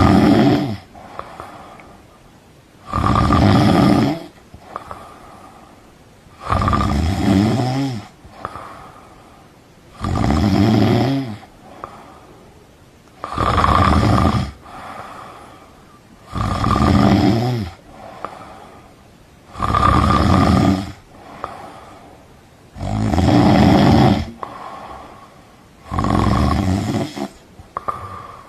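A person snoring loudly and rhythmically, a rasping snore about every three and a half seconds, each lasting about a second and a half, with quieter breathing between them.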